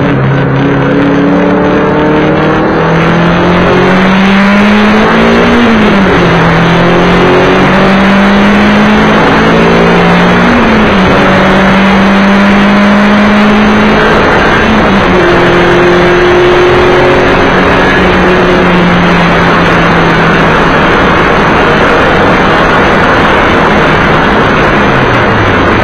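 Race car engine heard from inside the cockpit, running hard under acceleration. Its pitch climbs and then drops sharply three times, about 5, 11 and 15 seconds in, as the driver upshifts, over a steady rush of road and wind noise.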